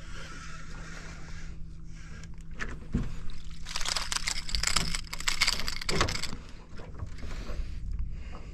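A hooked speckled trout thrashing and splashing at the water's surface beside its popping cork, a burst of sharp splashes lasting a few seconds around the middle, as it is reeled in to the boat.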